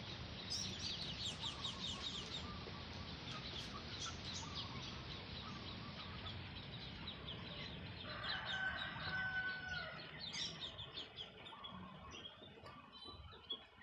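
Birds calling: a fast run of high chirps in the first few seconds, then a longer, lower call with a clear pitch at about 8 to 10 seconds, over a steady low background hum.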